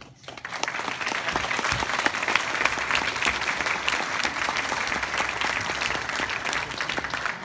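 Audience applauding, rising quickly to full strength and holding steady.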